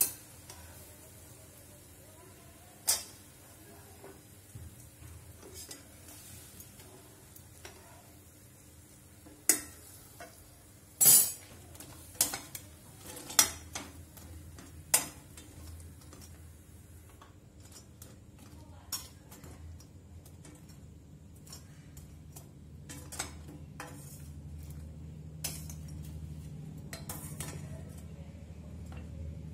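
Steel tongs and a slotted skimmer clinking and knocking against stainless steel pots as fried jalebis are moved from the hot ghee into the sugar syrup and turned, with a loud cluster of clinks a little past a third of the way in. A faint sizzle of ghee frying runs under them and stops about halfway through.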